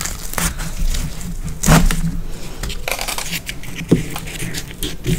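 Close-miked tearing of roti by hand: a run of crackling and rustling tears and small clicks. Near the end a piece of roti is dipped into a bowl of curry.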